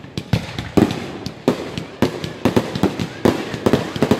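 Fireworks going off overhead: a rapid, irregular string of sharp bangs and cracks, coming thicker in the second half.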